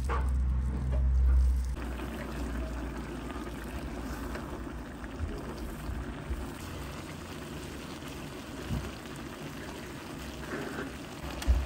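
A frying pan of one-pot spaghetti simmering in tomato liquid, a steady watery bubbling hiss, with a few light knocks. A low hum is loudest for about the first two seconds.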